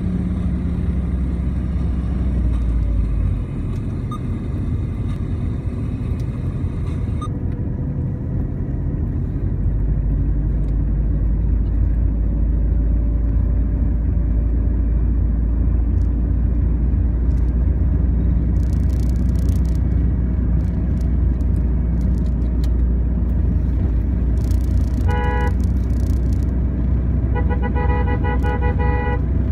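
Car driving, heard from inside the cabin: a steady low engine and road rumble. Near the end a horn sounds, a short toot and then a longer honk of about two seconds.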